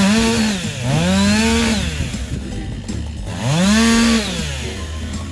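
Stihl two-stroke chainsaw revving up and dropping back three times. Each burst of throttle lasts about a second and rises and falls in pitch, and the saw idles lower in between as the small branches are cut off.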